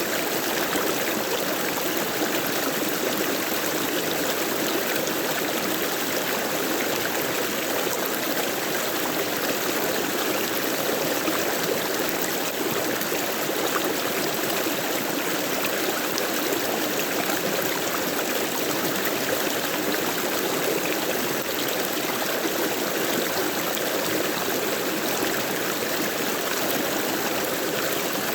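Stream of running water flowing steadily, an even rushing with no breaks or changes.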